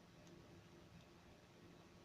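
Near silence, with a couple of faint ticks.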